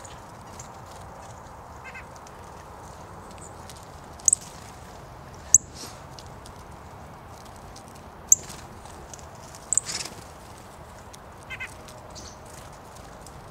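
Small songbirds calling at a winter seed spot. There are about four sharp, high, very short chips, the loudest sounds, and twice a brief nasal note, over a steady background hiss.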